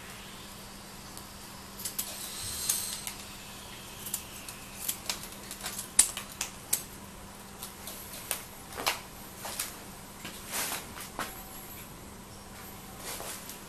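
Fir branches being cut into sprigs with hand shears and laid in a metal tray: a run of sharp, irregular snips and clicks with rustling of the needles, dying away about eleven seconds in.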